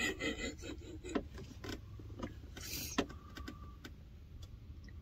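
Inside a van: a steady low engine hum, with scattered clicks and handling rustles and a short hiss about three seconds in.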